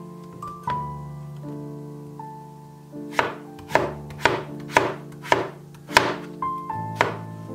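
A cleaver chopping a peeled raw potato on a wooden cutting board. After a light cut or two, a run of about eight sharp chops comes at roughly two a second from about three seconds in.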